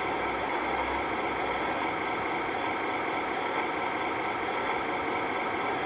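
Steady, even hum and hiss of a running machine that does not change throughout.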